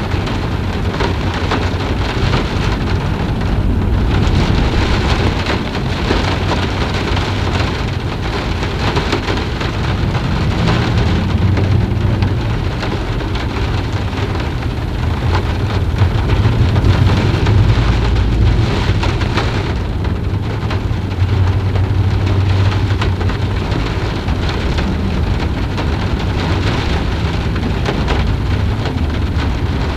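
Steady heavy rainfall, with a low rumble of distant thunder that swells and fades several times.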